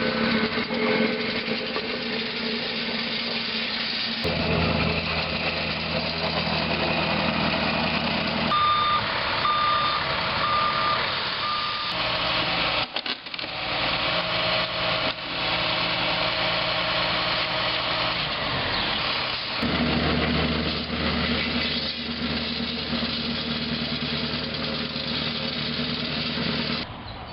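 Heavy construction equipment engine running, its note shifting several times as it works. A reversing alarm beeps four times, about one beep a second, roughly a third of the way in.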